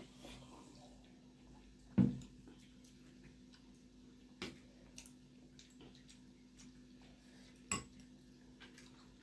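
Tableware sounds at a meal: a dull knock about two seconds in, like a steel tumbler set down on the table, then a few sharp clinks of a spoon and metal against dishes. A faint steady hum lies under it.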